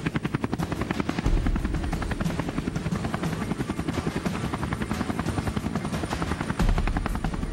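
Helicopter in flight, its rotor blades beating in a rapid, steady chop over a deep low rumble.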